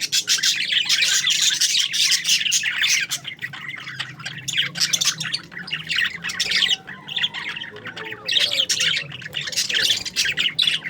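A flock of parakeets chattering and squawking without pause, many calls overlapping into a dense, high-pitched din.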